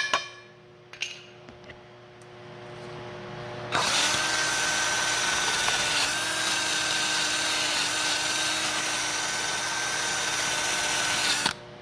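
Angle grinder running steadily on the steel of a loader's self-leveling arm, with an even whine. It starts about four seconds in, after a few faint taps, and cuts off abruptly near the end.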